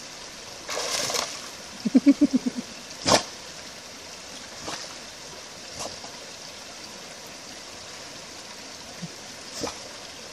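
Shallow creek water trickling steadily over rocks. Over it there is a splash about a second in, a quick run of about seven short pitched pulses around two seconds, and a sharp knock just after three seconds, with a few fainter splashes or knocks later.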